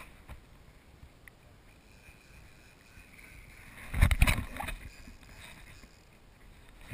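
Kayak hull and camera mount knocking and rumbling in a loud short cluster about four seconds in as the kayak lurches, over faint water and wind noise.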